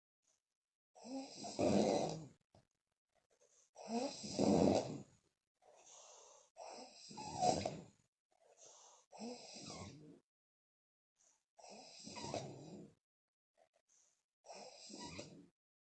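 A sleeping woman snoring loudly, her lips puffing as the breath goes out. It comes as about six snoring breaths, roughly one every two and a half seconds, with silent pauses between them.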